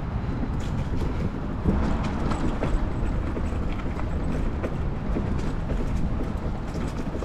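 Stealth Bomber electric enduro bike rolling over a dirt trail littered with leaves and twigs: tyre noise and bike rattles, with frequent small clicks and ticks over a steady low rumble.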